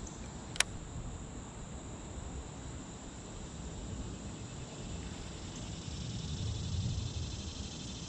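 Insects trilling steadily in the background, with a single sharp click about half a second in and a low rumble swelling near the end.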